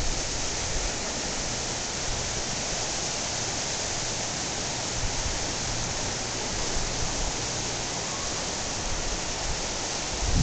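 Steady rushing of a high, muddy creek running fast beside the path: an even, unbroken hiss.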